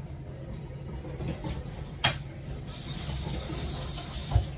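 Dishwasher running with a steady low hum, with a sharp click about two seconds in, a hiss through the second half, and a dull thump near the end.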